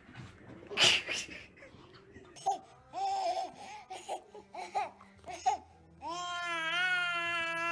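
Baby laughing in short, bouncing giggles, after a sharp loud burst about a second in. Near the end comes one long held high note that slides up, holds steady and falls away.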